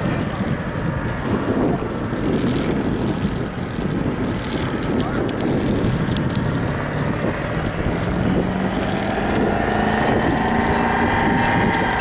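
Toyota rock crawler's engine running as it crawls over rocks, its revs rising over the last few seconds. Wind buffets the microphone.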